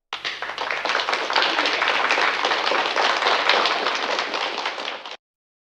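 Applause: many hands clapping in a dense patter that starts abruptly and cuts off suddenly about five seconds in.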